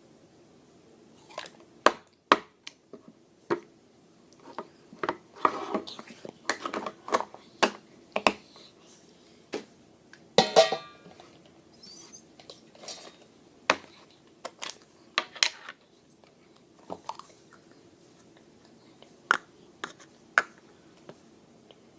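Slime being squeezed and poked by hand, giving irregular sharp pops and clicks, with a longer crackling squish about ten seconds in.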